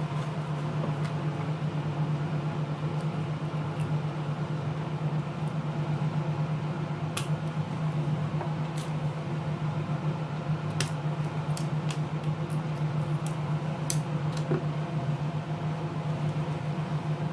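Steady low hum of a running fan or motor, with a few scattered sharp clicks of small hand tools on a tablet being taken apart, most of them in the middle stretch.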